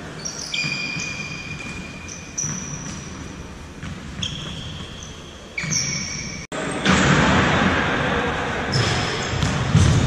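A futsal ball thumping off feet and the wooden floor, with several short, high sneaker squeaks on the court. About six and a half seconds in the sound cuts out for an instant, and a louder rushing noise follows.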